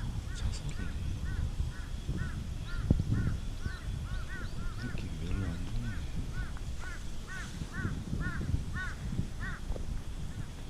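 A bird calling in a rapid series of short, arched notes, about three a second, over a low rumble, with a single knock about three seconds in.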